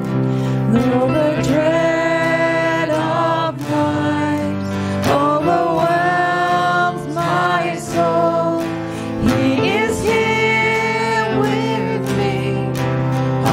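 Worship song: a solo voice singing a slow melody over sustained guitar accompaniment.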